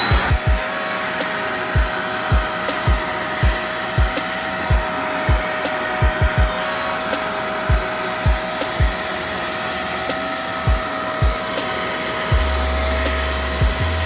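Hoover Spotless portable carpet extractor's suction motor settling to full speed with a rising whine, then running steadily with a high hum. Its hand tool is worked over a car floor mat, with irregular low thumps, and a deeper hum joins near the end.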